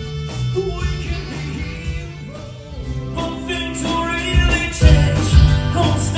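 Live rock band playing, with singing; the music thins out briefly, then grows fuller and louder about halfway through.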